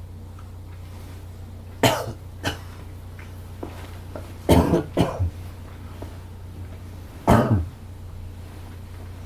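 A person coughing in their sleep, short sharp coughs in three bouts: about two seconds in, a quick cluster around the middle, and one more near the end.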